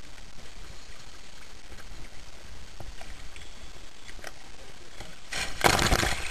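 A scuba diver in full gear with a tank rolls backward off the side of a small boat into the sea: a loud splash about five seconds in, lasting under a second. Before it there is only faint water noise.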